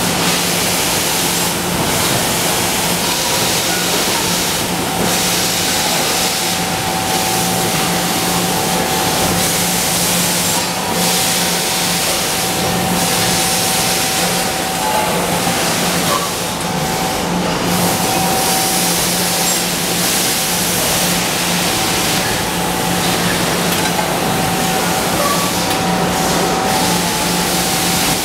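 Aluminum cookware production-line machinery running, presses and conveyor belt together: a loud steady noise with a low hum and a thin steady whine over it.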